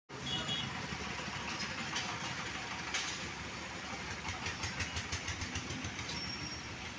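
Small road-vehicle engines running as they cross a railway level crossing. It is a steady noisy run, with a quick knocking rattle through the middle seconds.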